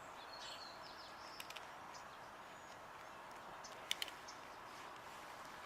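Quiet outdoor background hiss with a few faint bird chirps near the start and a handful of sharp little clicks, the loudest a pair about four seconds in.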